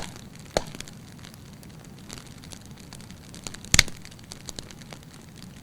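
Wood fire crackling in a fireplace: a faint steady hiss with scattered pops, the loudest a sharp crack a little before four seconds in.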